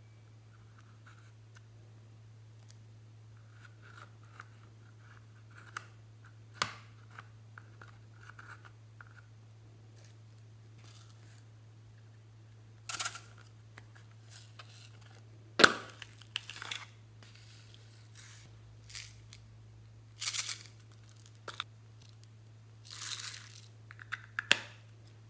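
Plastic spatula faintly scraping loose glitter out of an eyeshadow palette, then, about halfway through, a string of sharp clicks, cracks and crackly rustles as hard plastic toys are handled, over a low steady hum.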